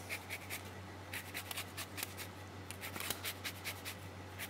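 Hand-held lemon zester scraping over lemon peel in short rasping strokes, about four a second, over a low steady hum.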